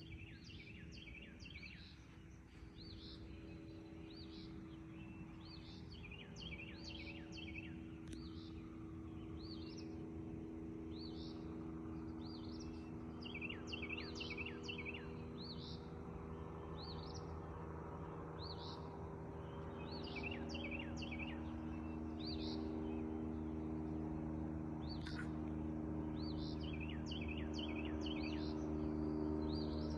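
Small birds chirping over and over, short high calls and quick runs of falling notes. Underneath runs a steady low droning hum that grows louder over the second half.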